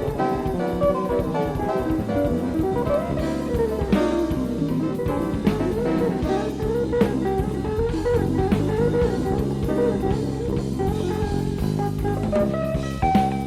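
Live jazz-fusion band playing from a cassette-tape recording: an electric guitar plays a lead line with bent and sliding notes over drum kit and bass.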